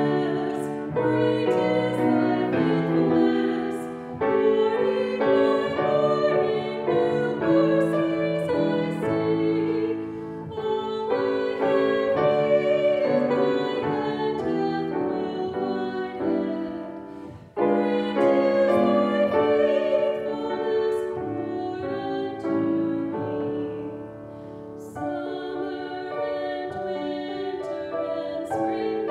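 A woman singing a hymn solo with vibrato, accompanied on grand piano. There is a short break between phrases about two-thirds of the way through.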